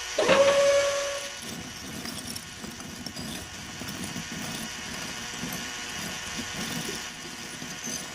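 A small electric motor whines into motion with a steady tone just after the start, which fades after about a second into a low, uneven churning that repeats a couple of times a second.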